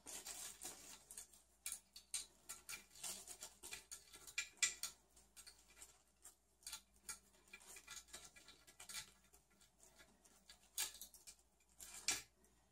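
Faint, irregular small clicks, ticks and scrapes of hands handling a graphics card and fitting its metal mounting bracket.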